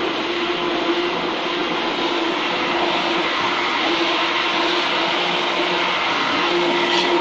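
Handheld immersion blender running steadily at one constant pitch, whizzing a thin crepe batter of milk, flour and eggs in a plastic beaker.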